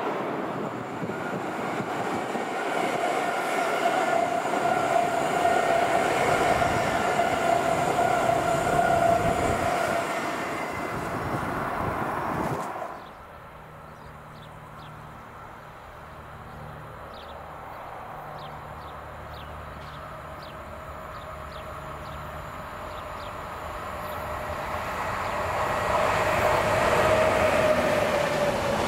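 An electric passenger multiple-unit train passes with a steady whine over its running noise. About halfway through, the sound cuts to a distant container freight train, which grows steadily louder as its wagons come by near the end.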